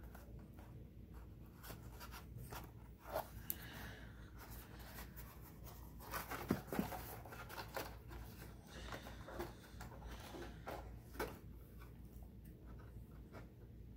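Stiff cardstock being handled and pressed into shape by hand: faint rustling and rubbing of paper, with a few sharper crinkles, the loudest about six and a half seconds in.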